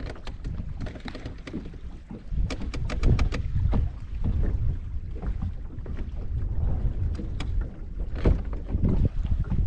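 Wind buffeting the microphone and choppy water slapping against a bass boat's hull, with a cluster of sharp knocks about two and a half to four seconds in and another near eight seconds.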